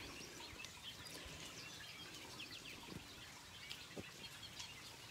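Faint birdsong: scattered short chirps from several birds over the steady light hiss of rain.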